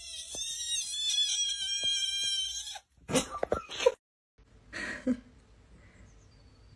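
Tabby kitten giving one long, loud, wavering high-pitched cry, followed by a few loud knocking and rustling noises about three seconds in.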